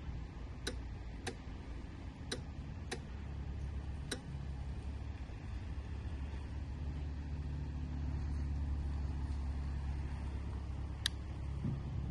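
Harley-Davidson Low Rider ST's V-twin engine idling with a steady low rumble that grows a little louder about halfway through. Sharp clicks come several times in the first four seconds and once more near the end.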